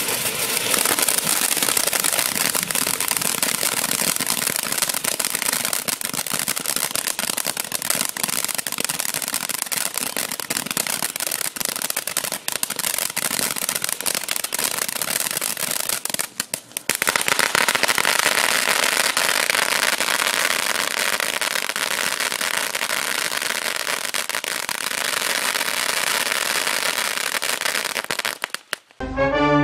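Miracle Fireworks 'Popcorn' M341 fountain spraying sparks, with a steady hiss and dense crackling and popping from its small bursts. It thins out briefly about halfway, picks up again, and stops just before the end.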